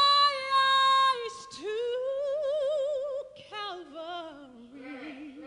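Soprano singing a slow, sustained line. She holds a long high note, then a second held note with wide vibrato, and the line then falls step by step to a lower, quieter note near the end.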